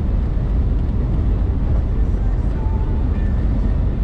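Steady low rumble of road, tyre and engine noise heard inside the cabin of a Mitsubishi Montero Sport cruising on an expressway.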